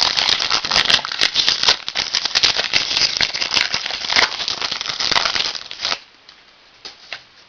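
Wrapper of a trading card pack crinkling and rustling as it is handled and torn open, a dense run of crackles that stops abruptly about six seconds in, leaving a few faint ticks.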